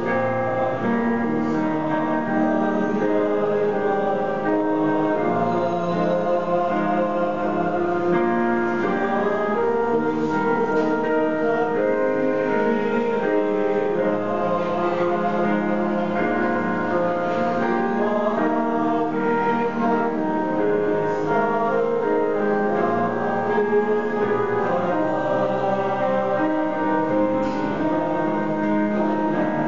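Mixed church choir of men's and women's voices singing a slow hymn in Tagalog in parts, with piano accompaniment.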